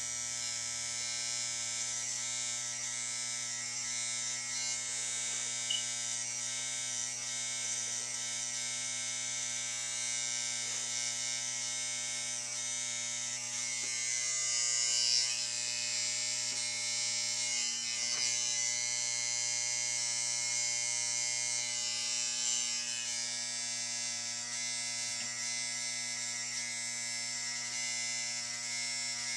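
Electric hair clippers running steadily with a constant hum while edging and cutting hair.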